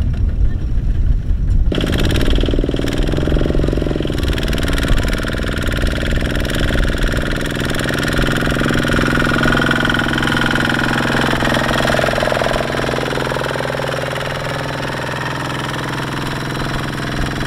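Single-cylinder diesel engine of a Kubota walking tractor running steadily under load as it pulls a loaded trailer through mud. The sound changes abruptly about two seconds in.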